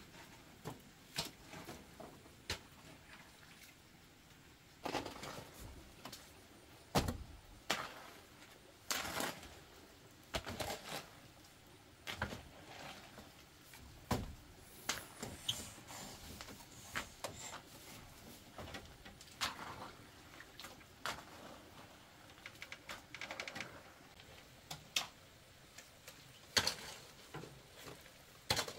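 Irregular light knocks, taps and rustles of a split-bamboo slat floor as a baby sits and crawls on it, some knocks louder and sharper than others.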